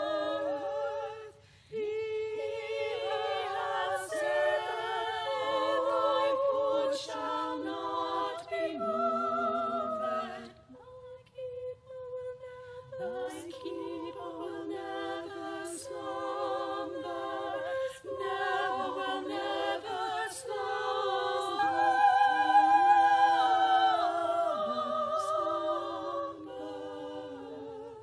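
A small group of voices singing unaccompanied in harmony, with vibrato. About eleven seconds in the singing thins to a single held note for a moment, then the full voices come back, loudest a little past the middle.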